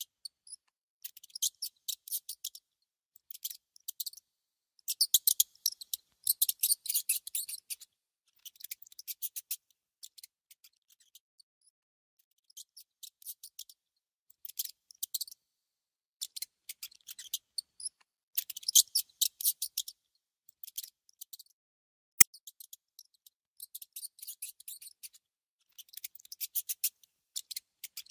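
Mouse nibbling food: repeated bursts of quick, fine crunching clicks with short pauses between them. Late on, one single sharper click.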